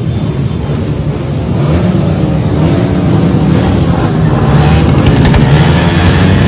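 Many motorcycle engines revving at once in a loud, continuous din, their pitch rising and falling as the throttles are blipped. The noise grows louder about five seconds in.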